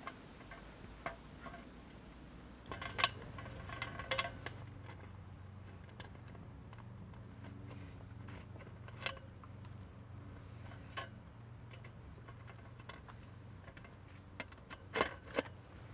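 Scattered faint clicks and clinks of small metal parts and tools being handled while a post-light fixture is wired, over a low steady hum that sets in about three seconds in.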